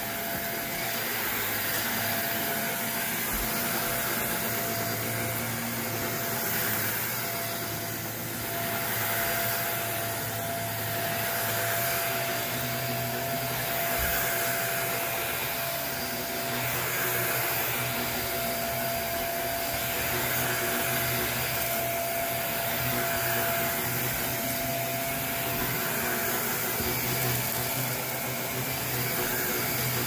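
Upright vacuum cleaner running steadily over carpet, its motor holding a constant whine. The suction noise swells and eases every few seconds as the head is pushed back and forth.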